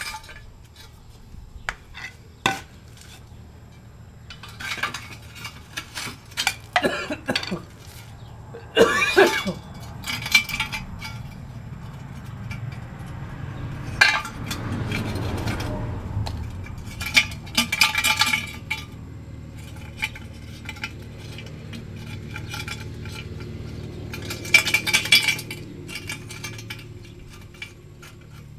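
Hand tools knocking, scraping and clinking against a catalytic converter's steel shell as the catalyst honeycomb inside is broken out, in irregular sharp knocks with ringing metallic clinks, and a low rumble partway through.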